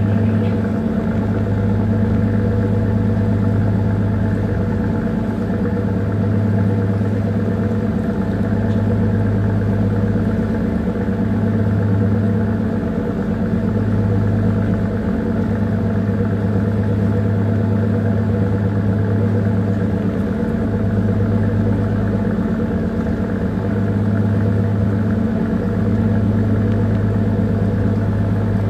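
A small bunker tanker's diesel engine running steadily underway: a deep, even hum that swells and eases every few seconds.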